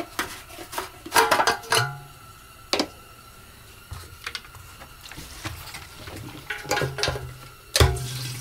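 Clicks and clunks of handling as the fuel tank cap on the engine is taken off and a plastic gas can is brought up to the tank, with a louder knock near the end.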